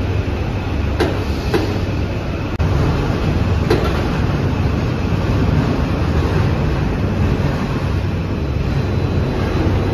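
Loud, steady rumble of factory machinery, getting a little louder about two and a half seconds in, with a few sharp clanks about one and about four seconds in.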